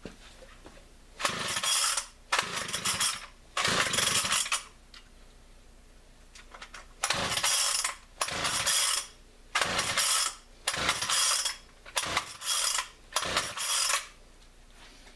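Chainsaw recoil starter cord pulled about ten times in quick sets, each pull a short whirring rasp with quiet between, the engine not catching.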